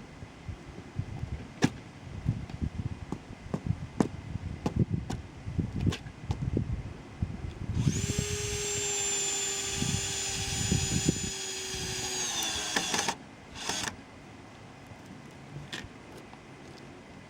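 Scattered knocks and thumps on wood, then a power drill runs steadily at one pitch for about five seconds as it drills down into the concrete slab. It winds down and stops, then gives one short burst.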